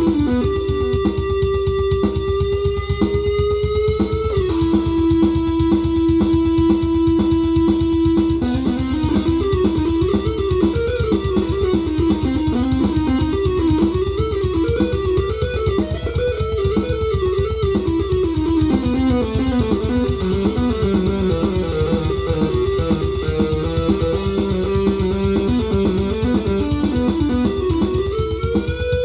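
Korg Krome synthesizer playing an electric-guitar-like patch. Long held lead notes slide up in pitch, then a quick, winding melody plays over a fast, steady pulse, with another upward bend near the end.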